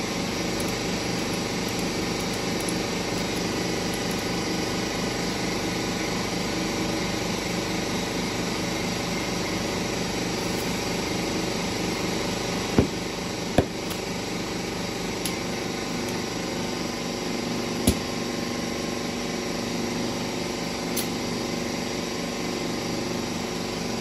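Air compressor running steadily while the mower's new tire is inflated through an air hose. Three sharp clicks sound over it, two about 13 seconds in and one near 18 seconds.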